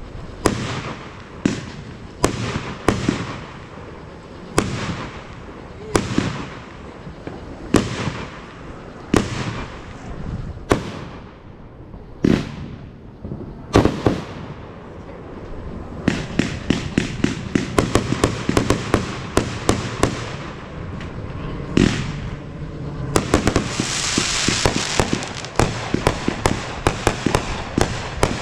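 Fireworks going off: single sharp bangs every second or two, each with a trailing rumble. About halfway through they give way to rapid crackling pops, many a second, and a loud hiss joins near the end.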